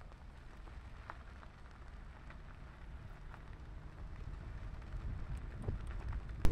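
Car rolling slowly over a gravel road: a low steady rumble with faint scattered crackles of gravel under the tyres, growing gradually louder toward the end.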